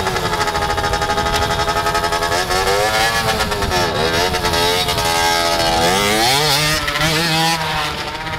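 Beta 50cc two-stroke motorcycle engine revving, its pitch rising, dipping about three to four seconds in, climbing again and falling away near the end as the bike rolls down a ramp.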